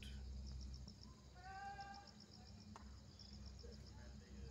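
Faint insects chirping in an even pulse of about five chirps a second over a low steady hum. About one and a half seconds in, a short pitched call sounds briefly.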